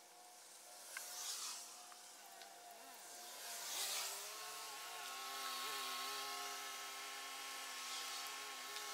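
A motor drones steadily, its pitch dipping briefly now and then. Over it come soft swishes of a paint roller stroking along wooden boards.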